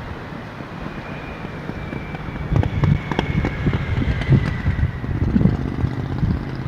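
Wind buffeting the microphone over the steady wash of ocean surf, the gusts growing stronger about two and a half seconds in.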